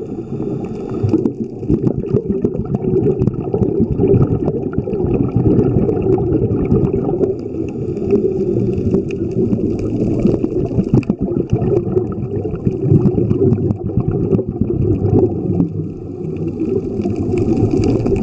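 Underwater ambience picked up by a camera under water: a steady muffled low rumble of water with many scattered crackling clicks.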